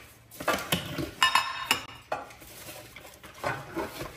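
Baking trays clattering as they are handled and set down: a string of light, irregular clanks, some with a short ring.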